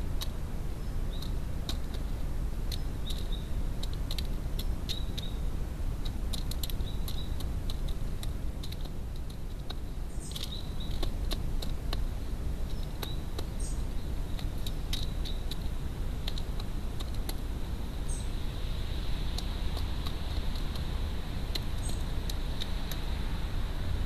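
Wood pigeon pecking seed from a plastic feeder tray: irregular sharp taps and clicks of its beak, over a steady low rumble.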